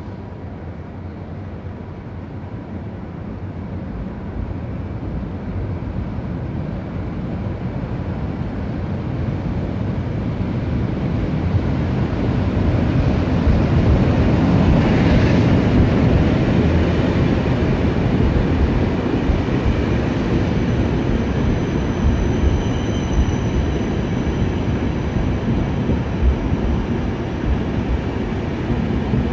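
A passenger train hauled by an EP07 electric locomotive pulls into the station. Its rumble grows steadily louder until the locomotive passes about halfway through, and the coaches' wheels keep rolling after it. A thin high squeal, typical of brakes as the train slows, comes in during the second half.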